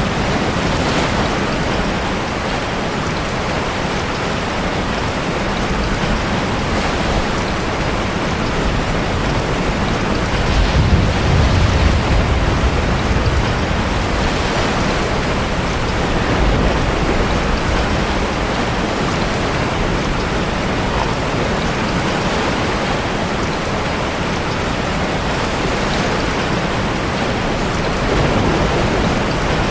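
Heavy rain falling steadily with ocean waves surging into a sea cave. A louder, deeper rumble swells about ten to thirteen seconds in.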